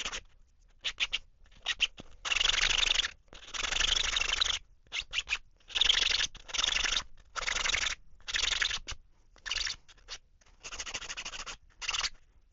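Super-fine sanding block rubbed in strokes over a 3D-printed crankbait body: a dry rasping scrape repeated about a dozen times, some strokes long and some short and quick. It is the final fine sanding that smooths the bait before clear coating.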